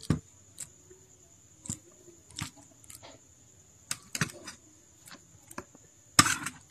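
A spoon clicking and scraping against a bowl, with soft wet squishes, as a fish-and-mayonnaise mixture is spooned onto diced avocado. The sound comes as scattered light clicks, with a louder scrape near the end.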